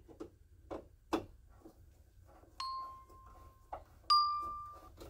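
Screwdriver clicking and tapping as small screws are driven to fix a brass nameplate, followed by two bell-like dings: the first held about a second before it stops abruptly, the second louder and fading.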